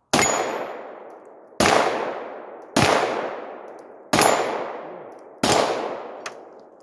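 Five pistol shots from a 9mm Glock 17 fired one-handed, spaced about a second and a half apart. Each report echoes and dies away over about a second.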